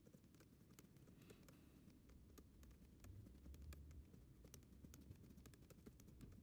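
Near silence with faint, irregular clicks and ticks from a stylus tapping and moving on a pen display's screen.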